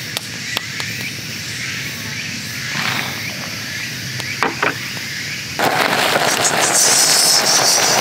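Wood campfire crackling with scattered sharp pops. About five and a half seconds in, a louder steady hiss takes over: a pot of noodles boiling hard over the fire.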